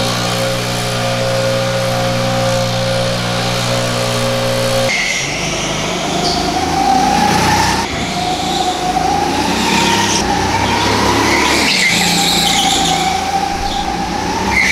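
A go-kart lapping an indoor track: its motor whine rises and falls in pitch as it speeds up and slows through the corners, with tyre squeal at the turns. For about the first five seconds there is instead a steady droning hum, which changes abruptly when the kart comes in.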